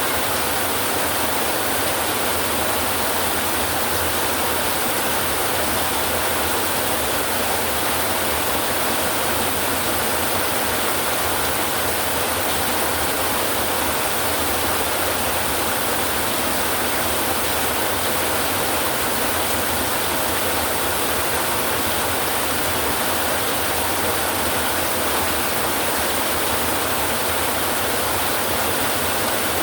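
Heavy rain drumming on a tin roof, a steady dense hiss that holds even throughout.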